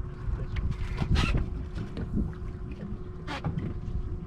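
Wind buffeting the microphone on an open boat at sea, with a faint steady hum underneath. Two short, sharp noises cut through, about a second in and again past three seconds.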